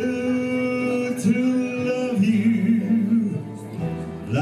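A man singing into a microphone over backing music, holding long sustained notes.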